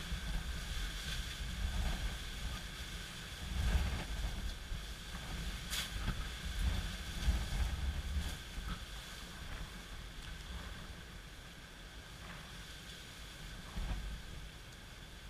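Gusty wind from an approaching hurricane buffeting the microphone in low rumbles over the steady hiss of rain. The gusts are strongest in the first half and ease later, with one sharp tick about six seconds in.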